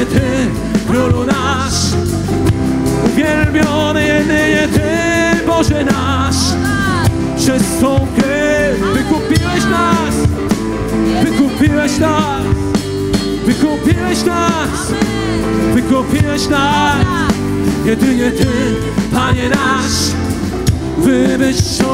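Live worship music: a band led by acoustic guitar holds a steady bed of sustained chords while singers improvise long, gliding melodic lines without clear lyrics.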